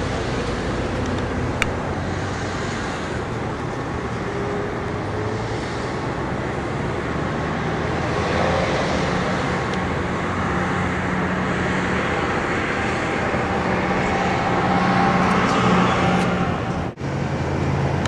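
Steady road traffic: vehicles running along the road across the dam, with a low engine hum that grows somewhat louder in the second half.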